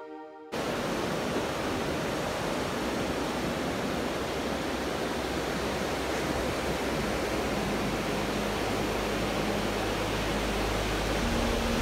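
Soft ambient music cuts off about half a second in, giving way to a steady rushing noise of ocean surf.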